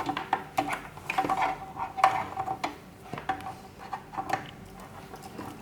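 A power cable being handled and plugged into a computer power supply: a run of irregular clicks, knocks and light rattles that thins out near the end.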